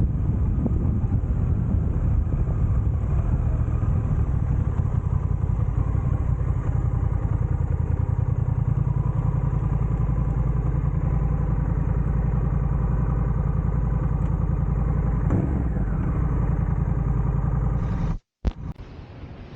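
Motorcycle engine running steadily, with a strong low, pulsing drone. Near the end the sound cuts off abruptly, and a much quieter wind-like noise follows.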